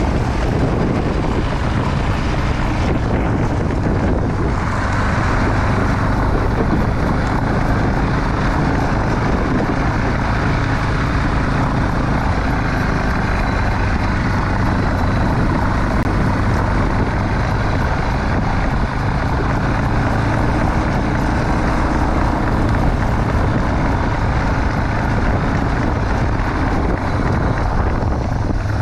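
Motor vehicle driving steadily: a continuous low engine and road rumble with a faint steady hum.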